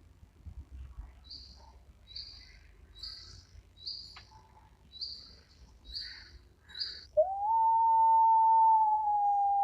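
A small bird chirping: a run of short, high calls roughly every 0.7 s, about eight in all. About seven seconds in, a much louder, long animal call begins, one held note that slowly sinks in pitch.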